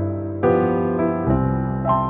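Background music: a soft electric piano playing held chords, changing chord about every second.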